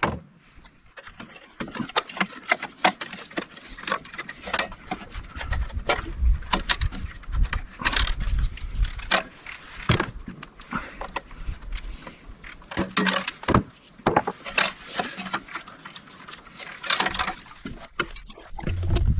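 Irregular clicks, knocks and rattles of hands-on work with hardware and tools, with a low rumble underneath.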